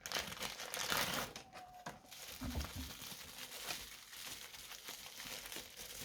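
Plastic packaging crinkling and rustling as hands open a Funko Soda, with a short low knock a little past two seconds in.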